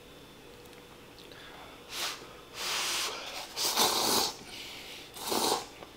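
A man slurping instant sauce yakisoba noodles from the tub, four short slurps starting about two seconds in.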